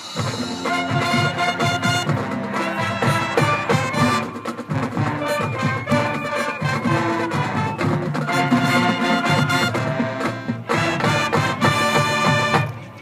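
High school marching band playing its field show: the ensemble holds sustained chords over the drum line, then cuts off right at the end.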